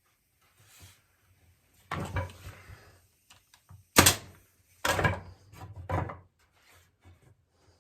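Wooden boards knocked and clattering as chair-back slats are handled and set in place, four separate knocks with the sharpest about four seconds in.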